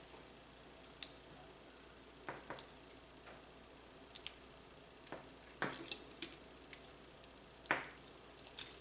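Scattered light clicks and taps of hands handling the small plastic and metal parts of a replacement electrical plug and its wires, with a short cluster of clicks a little past the middle.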